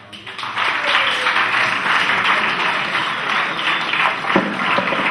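A roomful of people applauding, the clapping building up over the first second and then holding steady.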